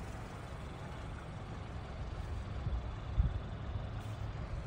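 Vehicle engine idling: a steady low rumble, with a brief louder bump about three seconds in.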